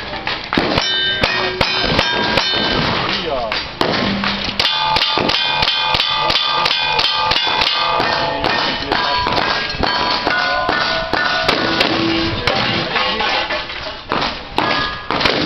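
A string of gunshots fired at steel targets, with many sharp reports and the steel plates clanging and ringing after hits.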